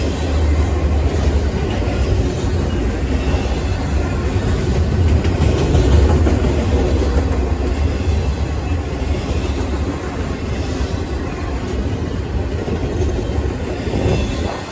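Double-stack container freight train rolling past, a steady deep rumble of wheels on rail with the rattle of the cars.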